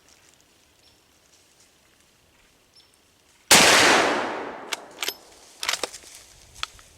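A single shotgun blast about three and a half seconds in, very loud and dying away over a second or so, followed by a few sharp clicks and knocks.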